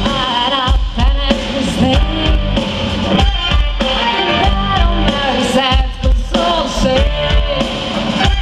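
A rock song played live by a string chamber orchestra with a drum kit, a woman singing lead through the PA over a strong, steady beat.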